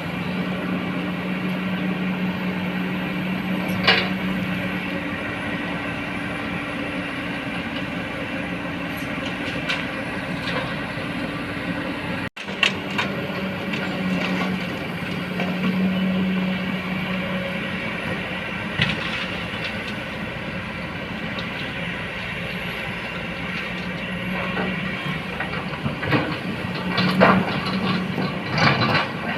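Hydraulic excavator working: a steady diesel engine drone with a constant whine over it, and sharp knocks and clanks now and then, several in quick succession near the end.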